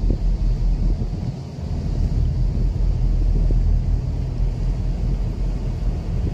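Wind buffeting the microphone: a loud, uneven low rumble that swells and dips in gusts.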